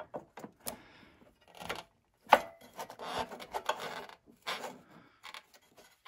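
Hands working at the plastic bodywork and seat-lock bracket under a Yamaha Zuma scooter's seat: scattered rubbing and scraping with light clicks, the loudest a single sharp click a little over two seconds in.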